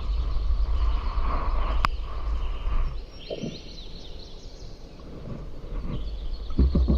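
Wind buffeting the microphone in gusts, dropping away about three seconds in and returning near the end, with faint bird chirps and a single sharp click.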